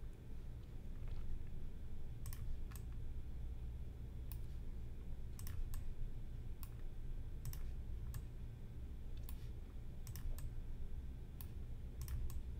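Computer mouse buttons clicking at irregular intervals, several in quick press-and-release pairs, over a steady low hum.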